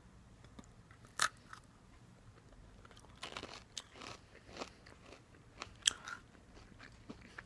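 Crunchy sunflower and sesame seed cracker being bitten and chewed: scattered faint crunches and crackles, with a sharper crack about a second in and another near six seconds.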